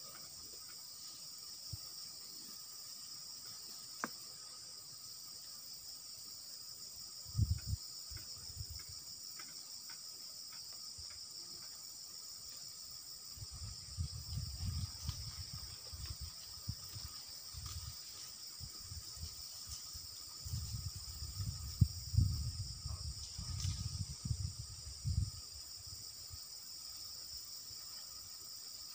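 Steady, high-pitched chorus of insects. Low rumbling bumps on the microphone come briefly about seven seconds in and in two longer spells in the second half.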